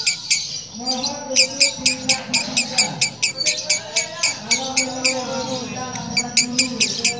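Female lovebird giving a harsh, rough cackle likened to a diesel engine: a fast, even run of sharp clicks, about six a second, with a short break just before a second in.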